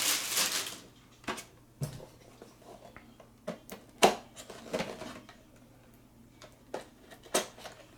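Heroclix booster packaging and small plastic miniatures being handled: a brief rustle of packaging, then scattered light clicks and taps of plastic on plastic.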